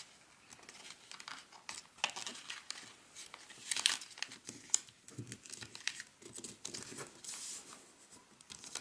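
A sheet of origami paper crinkling and rustling as it is opened and squash-folded flat by hand. Irregular crisp crackles come from the paper, with louder ones about two and four seconds in.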